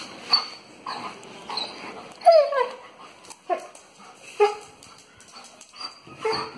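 Doberman whining and whimpering in short, repeated calls, several of them falling in pitch, the loudest about two seconds in: a dog's excited greeting whines.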